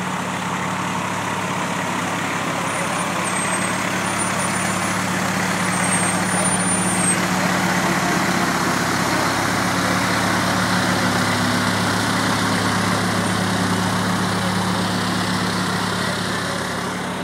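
Fire department ladder truck's diesel engine running as the truck drives slowly past, growing louder toward the middle and easing off near the end.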